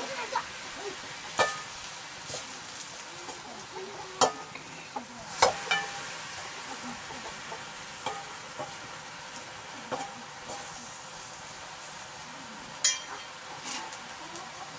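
Leafy greens sizzling in a wok over a wood fire, stirred with a metal ladle that knocks and scrapes against the pan every second or two.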